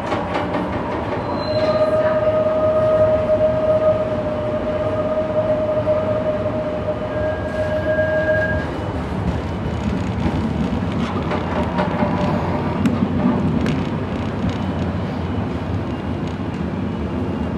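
A restored vintage PCC streetcar running, heard from inside the car. A steady whine lasts for about the first half and stops about halfway through. The car then rumbles on with scattered clicks from the wheels over the track.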